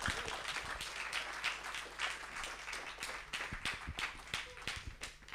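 Audience applauding, a dense patter of many hands clapping that thins out toward the end.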